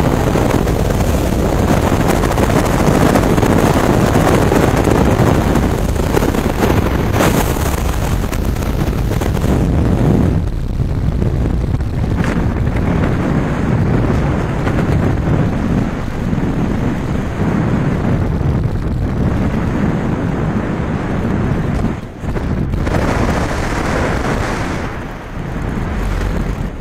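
Wind rushing and buffeting over a skydiver's camera microphone in freefall. It eases and thins after about ten seconds, once the parachute canopy is open, and goes on as a lighter wind noise under canopy.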